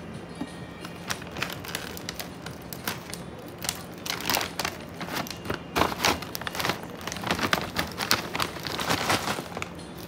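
Thin plastic food packaging crinkling and crackling in the hands as it is opened, in irregular crackles that grow busier from about four seconds in.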